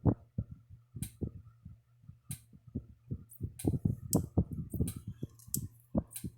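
Kencove EKD3 electric fence charger clicking with each output pulse at full power, a sharp tick roughly every second and a quarter, over a steady low hum.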